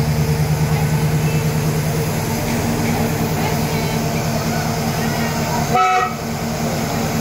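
Engine of Virginia & Truckee McKeen motorcar No. 22 idling with a steady, even throb. A short horn toot comes about six seconds in.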